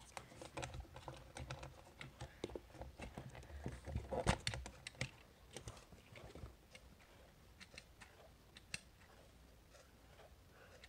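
Quick plastic clicks and knocks from a quartz wall clock being handled and its hands set back, loudest about four seconds in, then thinning to a few faint scattered clicks.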